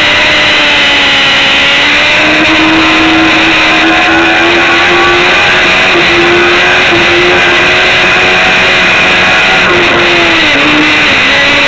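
Sport motorcycle engine running hard at about 200 km/h, its note holding high and climbing slightly, then dropping about ten seconds in as the bike slows, over heavy wind rush on the onboard microphone.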